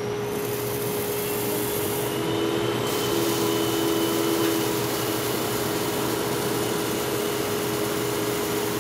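Fluid-bed coffee roaster's blowers running, a steady rush of air with a hum, as the air flow is set to loft the green beans in the roasting chamber. It gets a little louder a few seconds in, when a second, lower hum joins.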